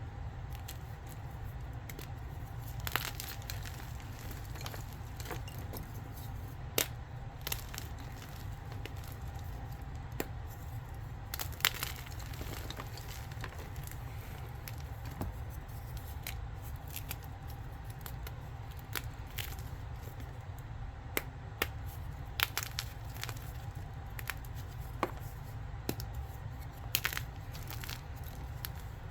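Blocks of gym chalk being crushed: irregular crisp crunches and crackles, some sharper and louder than others, over a steady low hum.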